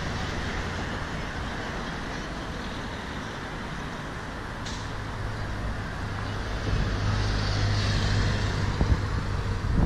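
Street traffic: a steady hum of road noise, with a car's engine and tyres growing louder as it drives past close by during the second half.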